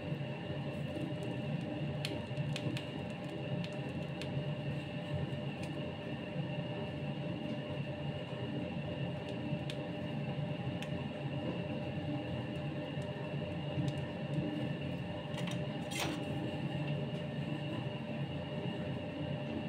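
Steady machine drone with a low rumble and several fixed whining tones, unchanging throughout, with a few faint clicks and one sharper click about 16 seconds in.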